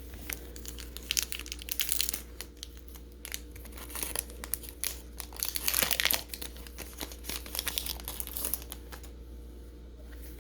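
Foil Pokémon booster pack wrapper being torn open and crinkled by hand, in irregular bursts of crackling rustle.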